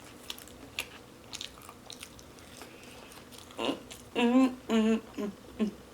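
A person chewing food with wet mouth clicks and smacks. From a little past halfway come a few short voiced sounds with the mouth full.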